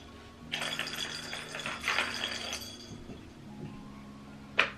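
Plastic ball rattling as it rolls around a circular plastic track cat toy, batted by a cat, for about two and a half seconds, with a single sharp click near the end over quiet background music.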